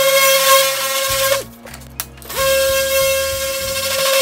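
Electric random-orbital sander running steadily against a car body panel, with a whine; about a second and a half in it winds down and stops, then spins back up about a second later. Background music underneath.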